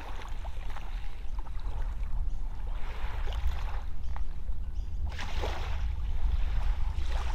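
Wind rumbling on the microphone, with small waves lapping softly at the shore of a calm lake every second or two.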